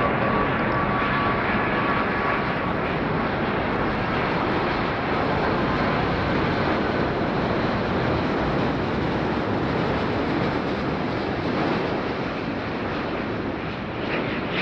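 Boeing 787 Dreamliner's jet engines on landing approach, passing close by: a loud, steady wash of jet noise, with a faint high whine in the first few seconds that fades out.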